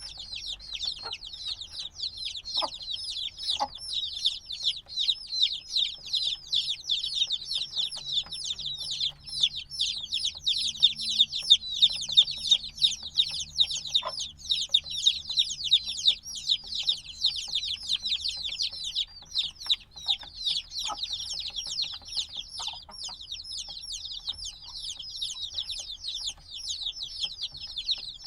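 A brood of chicks a few days old peeping nonstop, many overlapping high, quick, downward-sliding peeps, loudest around the middle.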